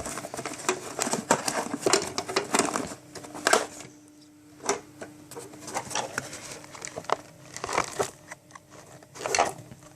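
Paper vacuum dust bag crinkling and rustling, with irregular small clicks and knocks of plastic, as it is handled and seated in the bag compartment of an upright vacuum cleaner.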